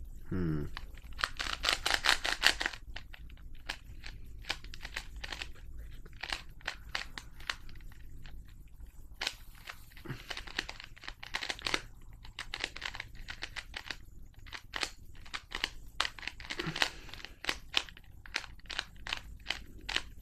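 Plastic Rubik's cube being twisted by hand: its layers clicking and clacking as they turn, in quick runs about two seconds in, around ten to twelve seconds and about sixteen seconds in, with scattered single clicks between.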